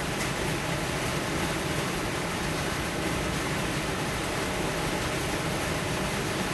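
Rain falling steadily: an even hiss with no single drops standing out.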